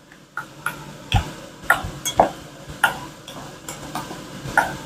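Chopped pico de gallo being mixed by a gloved hand in a stainless steel bowl, with a series of light, irregular clicks and taps against the metal bowl, about two a second, some ringing briefly.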